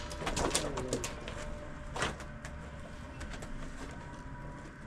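A bird calling in low notes near the start, with one sharp knock about two seconds in.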